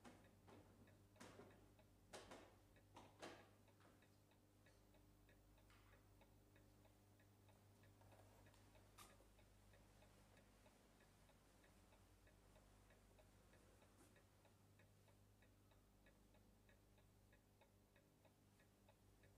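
Near silence: a clock ticking faintly and steadily over a low hum, with a few soft knocks in the first few seconds.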